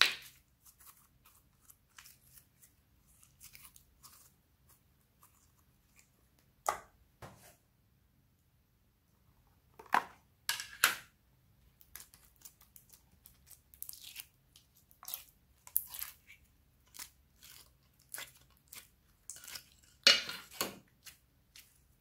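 Hands stretching, squeezing and pulling slime apart, making irregular short crackles and pops. The clear green slime is pried out of a plastic mould tray and squeezed, with the loudest crackles about ten seconds in and near the end.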